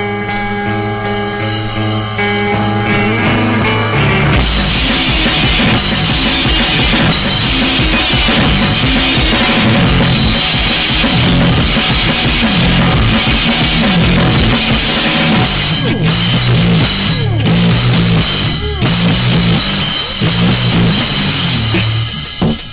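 Screamo band recording: ringing guitar chords, then about four seconds in the drums and the full band come in loud and dense.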